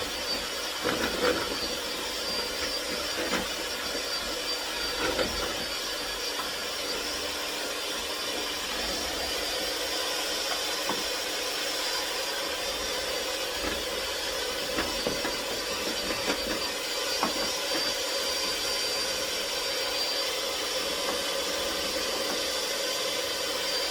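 Electric mixer running steadily on medium speed, beating a no-bake cheesecake filling made with milk as it thickens, with a constant motor whine.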